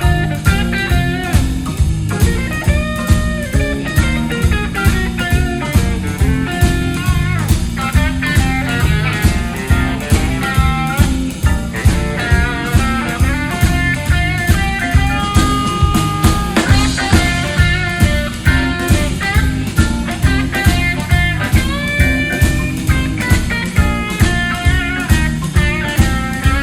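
Live blues-rock band playing, with guitar lines over Hammond organ, bass and drums keeping a steady beat.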